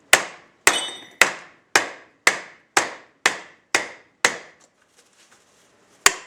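Soft-face hammer striking a UFO orbital sander attachment to knock its main bearing out: a steady run of sharp blows about two a second, then a pause and one more blow near the end.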